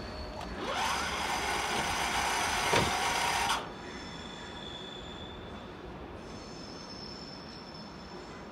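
Train at a station: a loud, high hissing squeal with steady high tones rises in about half a second in, carries a sharp click near the end, and cuts off suddenly after about three seconds. A fainter steady high whine from the train follows.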